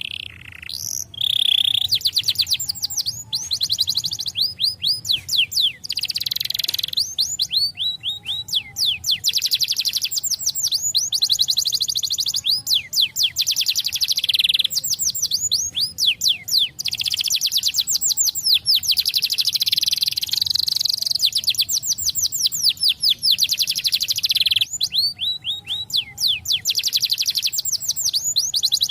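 Domestic canary singing long, fast trills of rapidly repeated downward-sweeping notes, in phrases broken by short pauses.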